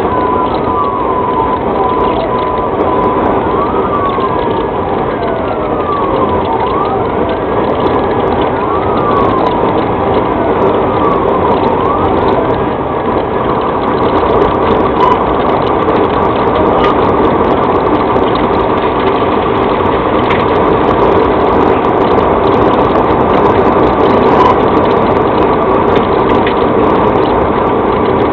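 Police siren wailing, rising and falling about every three seconds, over the steady road and wind noise of a patrol car driving at about 90 mph. The wail stops about halfway through, leaving the road noise.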